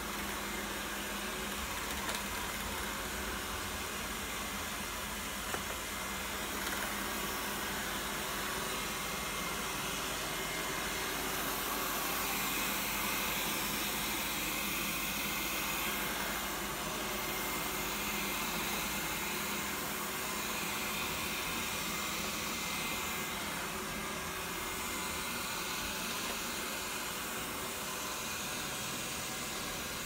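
Xiaomi Mi robot vacuum running: a steady whir of its suction fan and brushes, growing louder around the middle as it passes close by.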